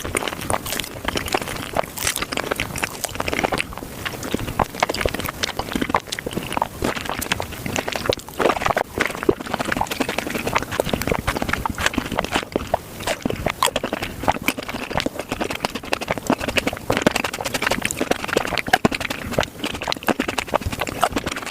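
Close-miked fruit eating sped up to a fast blur: a dense, unbroken stream of biting, crunching and wet chewing clicks.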